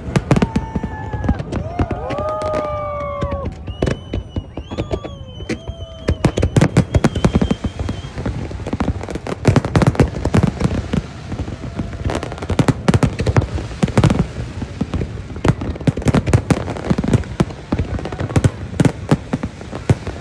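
Fireworks display: a continuous run of sharp bangs and crackling that grows denser after about nine seconds, with voices in the crowd calling out during the first few seconds.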